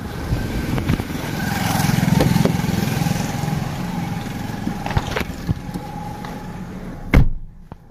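Motor vehicle engine running close by amid street noise, swelling about two seconds in and then holding steady. A couple of sharp knocks cut through, the loudest about seven seconds in.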